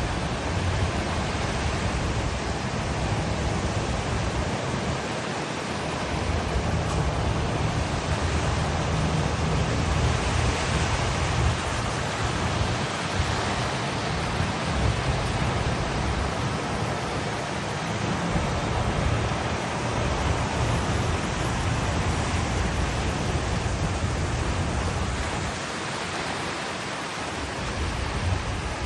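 Heavy rain pouring down in a steady, loud downpour, with a low, uneven rumble underneath.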